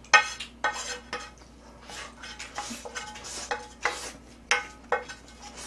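A metal utensil scraping and clinking against the inside of a two-handled metal pan, scraping out the last of the noodles: a string of short scrapes and clinks, about two a second, some ringing briefly.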